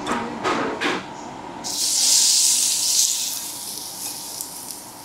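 Marinated octopus sizzling as it is laid on a hot barbecue grill plate: after a few short knocks of the tongs, a loud hiss starts about a second and a half in, then slowly eases off.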